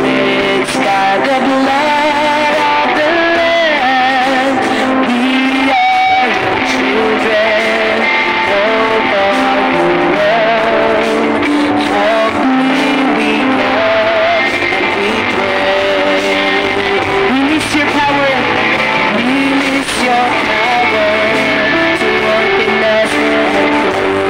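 Live church worship band playing a praise song. Singing voices carry the melody over keyboard, bass guitar and electric guitar, steady throughout.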